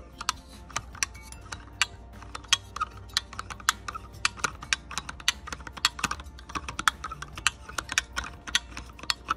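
Quick, irregular small clicks and taps of metal parts, about three to four a second, like typing, as a camera and field-flattener assembly is fitted by hand into a small refractor's focuser.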